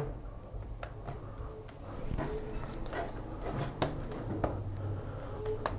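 Faint scattered clicks and taps from the Dell Inspiron 5570's plastic bottom case as its clips are pressed and snapped into place, several at irregular intervals over a low hum.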